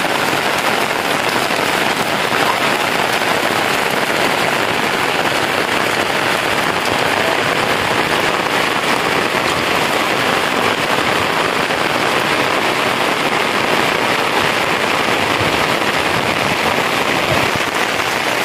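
Steady rain falling on corrugated metal roofs and wet ground.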